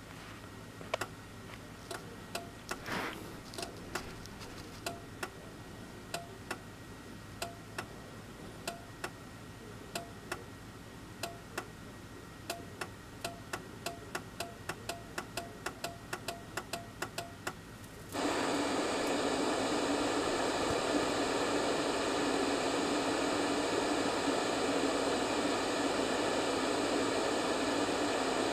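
A series of sharp, irregular clicks that come faster and faster. About two-thirds of the way through, a 1989 Teknika CRT television's speaker suddenly bursts into loud, steady static hiss as the set comes on to a blank channel.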